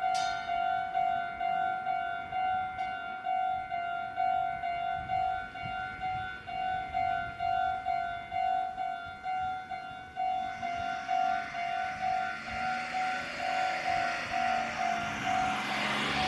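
Level-crossing warning bell ringing steadily, about two rings a second. From about ten seconds in, a Meitetsu 4000 series electric train approaches and passes, its running noise growing louder until near the end.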